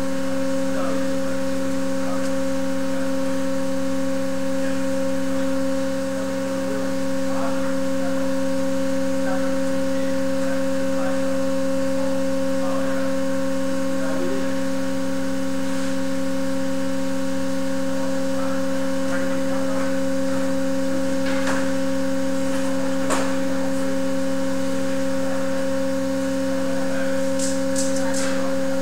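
Steady machine hum from the beam-testing rig's equipment, made of several constant tones. A few sharp clicks sound about 21 and 23 seconds in, and a short run of ticks comes near the end.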